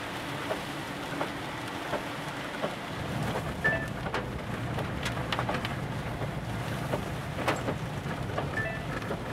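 Car cabin while driving slowly on a wet road in rain: steady tyre and road noise, with a low rumble that grows louder about three seconds in and scattered light ticks.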